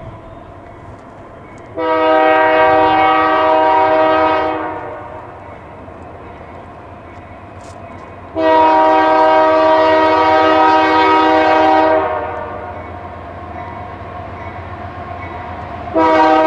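Union Pacific diesel locomotive's air horn sounding two long blasts, each about three seconds, then starting a third just before the end. A steady low rumble from the approaching train runs underneath.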